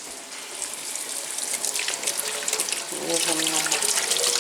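Kitchen tap running, with water splashing as a refrigerator shelf is washed in the sink. The flow builds over the first couple of seconds and then runs steadily.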